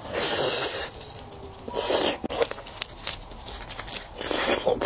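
Close-up eating sounds of raw red devil shrimp: three breathy slurping and sucking bursts with small wet mouth clicks between them.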